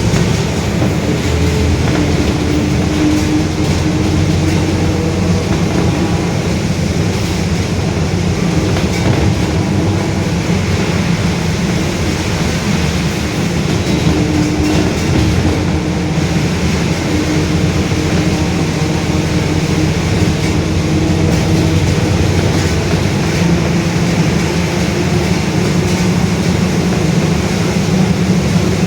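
Mercedes-Benz OF-1721 city bus running on the road: steady drivetrain and road noise with a loud growl from the differential. Its droning tone wavers and swells now and then.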